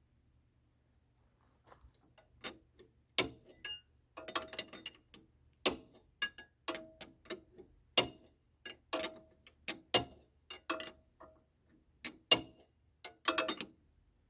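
Sharp metal clicks and taps from a wrench working on a hydraulic hose fitting, coming about once or twice a second, some in quick little runs, starting about two seconds in.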